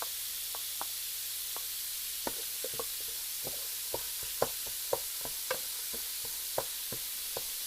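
Washed rice frying with sautéed onions and garlic in a pot: a steady sizzle, with irregular clicks of a spoon stirring against the pot.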